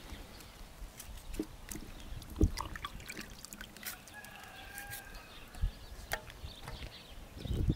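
A bell pepper being torn by hand and its pieces dropped into an aluminium pot of meat: scattered snaps and soft thuds, the loudest about two and a half seconds in. A hen clucks briefly in the background about four seconds in.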